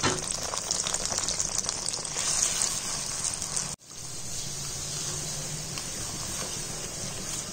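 Tomato-and-spice masala sizzling in hot oil in a non-stick karahi while a spatula stirs it through. The steady hiss breaks off for an instant about four seconds in, then carries on.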